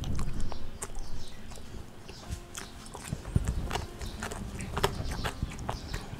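A person chewing a mouthful of rice close to a clip-on microphone: irregular wet mouth clicks and smacks, many small sharp ticks.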